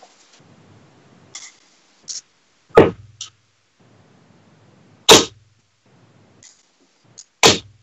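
Three steel-tip darts strike a bristle dartboard one after another, about two and a half seconds apart, each a sharp impact with a short thud. A few fainter clicks fall between them.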